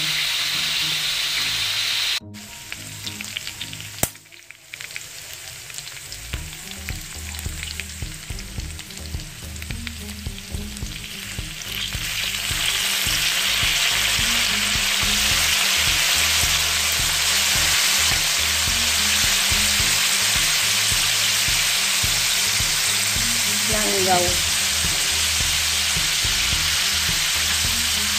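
Chicken gizzards and onion sizzling as they fry in an aluminium wok, with a metal spatula stirring and scraping. The sizzle drops off abruptly about two seconds in, then grows louder from about twelve seconds in as a dark sauce goes into the hot pan.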